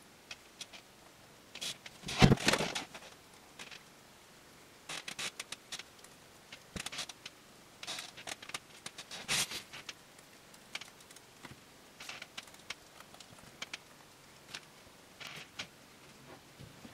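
Scattered small clicks, taps and light knocks of hands handling a MacBook Pro trackpad and its tiny washers on a table, the loudest a short clatter about two seconds in and another about nine seconds in.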